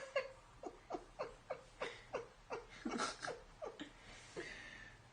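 A woman laughing quietly in a long run of short "ha"s, each falling in pitch, about three a second, dying away about four seconds in.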